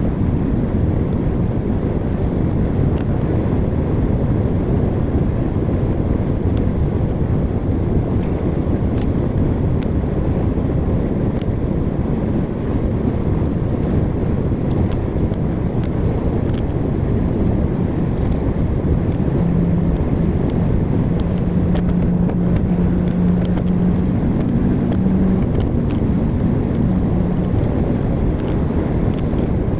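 Steady road and engine noise of a vehicle driving on a highway, a constant rumble with no breaks. A low steady hum joins it about two-thirds of the way through.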